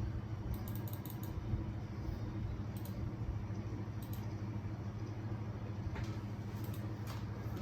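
GEEK GK64XS mechanical keyboard with superlubed Gateron Brown tactile switches being typed on: a quick run of keystrokes in the first second and a half, then single keypresses every second or two. A steady low hum runs underneath and is the loudest thing.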